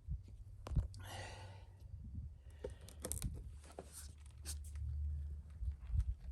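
Light clicks and rustling from hands working the tire plug kit's tools and sticky plug, with a short rustle about a second in over a low steady hum.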